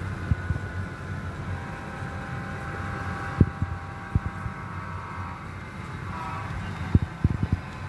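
Model railroad EMD diesel locomotives running on layout track, giving a steady hum with steady mid-pitched tones over it. Sharp clicks come a few times and in a quick cluster near the end as the wheels pass over rail joints and turnouts.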